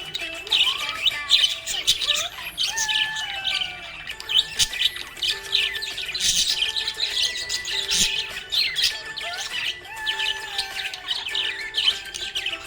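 Budgerigars chirping and chattering in a fast, continuous stream of short high squawks and tweets.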